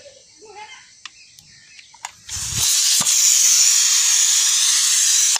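Pressure cooker venting steam in a loud, steady hiss that starts about two seconds in and stops suddenly at the end.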